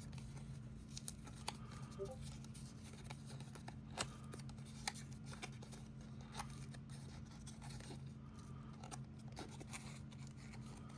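Cardstock pop-up pieces being folded and creased by hand: faint, scattered paper clicks and crinkles over a steady low hum.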